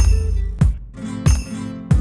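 Music with a steady beat: drum hits under pitched instrumental notes.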